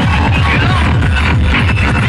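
Loud electronic dance music with a heavy bass beat, played through large DJ speaker stacks.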